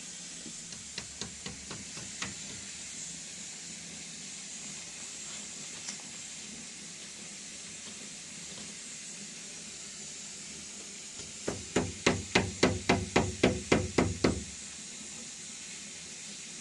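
A fast, even run of about fourteen sharp knocks, roughly five a second, lasting about three seconds, over a steady hiss. There are a few light clicks in the first couple of seconds.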